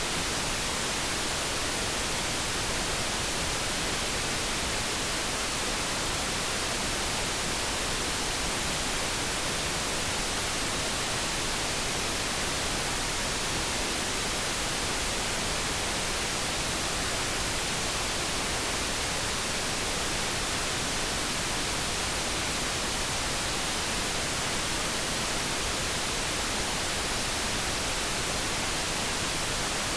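Steady synthetic noise: a smooth, even hiss with no pitch and no change. No kettle tone or other event stands out.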